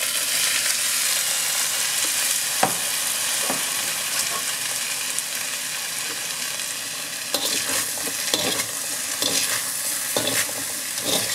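Chicken and vegetable stir-fry sizzling in a hot wok as broccoli florets are tipped in. From about seven seconds in, a metal slotted spatula scrapes and knocks against the wok several times as the food is stirred.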